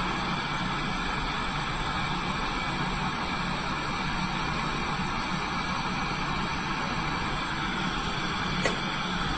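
Lampworking bench torch burning with a steady hiss while glass is worked in its flame. A small click sounds near the end.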